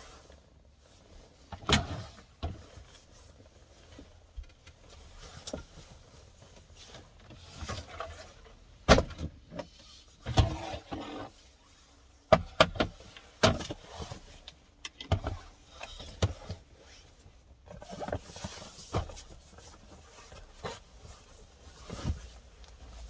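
Irregular thumps, knocks and rustles as folding foam mattress pads and bags are handled and shifted inside a minivan's cabin, with the loudest knocks about nine and twelve seconds in.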